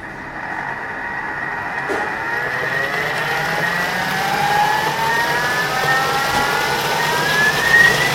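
Blender motor running and speeding up, its whine rising steadily in pitch while it purées cooked rice with black sesame paste and miso.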